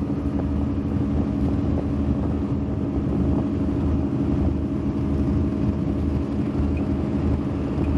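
Twin engines of a Fountain Lightning powerboat running steadily at a constant speed while under way, with an even low drone throughout.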